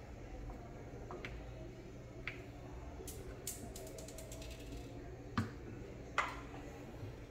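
Handling noise from a Reximex Throne PCP air rifle on a wooden workbench: a few small clicks, a quick run of sharp clicks a little after three seconds, and two knocks about a second apart near the end as the rifle is turned over and set back down.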